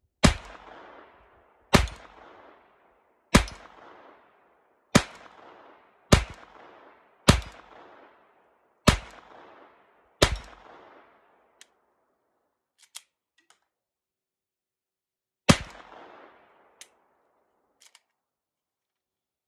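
Glock 44 .22 LR pistol firing nine shots: eight at a steady pace about one and a half seconds apart, each ringing out for about a second, then a pause of about five seconds with a few faint clicks, and a final shot. A couple of light clicks of the pistol being handled follow near the end.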